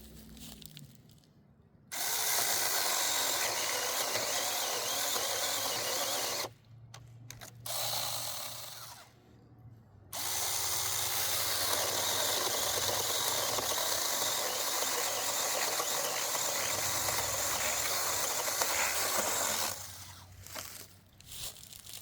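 Battery-powered mini chainsaw running in three spells: about four seconds, a short softer burst, then about ten seconds. Each starts and stops abruptly.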